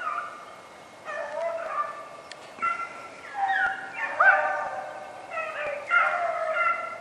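A pack of rabbit hounds baying: several dogs' yelping cries, overlapping and sliding in pitch, coming about once a second. The pack is giving tongue while running a cottontail's trail.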